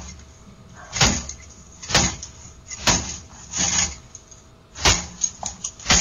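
Repeated heavy blows on a front door, about one a second, six in all, each a loud bang, heard through a Ring doorbell camera's microphone.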